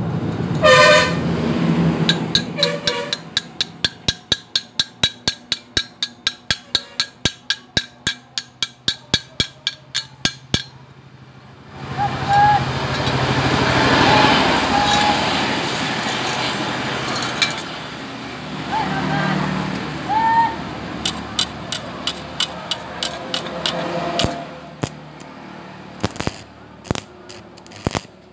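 Metalwork on thin square steel tube: a run of quick, evenly spaced metal knocks, about three or four a second for some eight seconds, then a few seconds of steady hissing, then scattered knocks.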